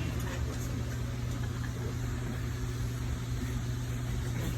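Steady low hum of a running household appliance, even and unchanging, with a few faint small ticks.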